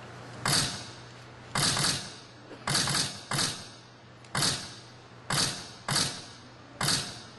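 A series of sharp, dry rattling hits as percussive accompaniment to a dance: about nine strikes at uneven gaps, each dying away quickly.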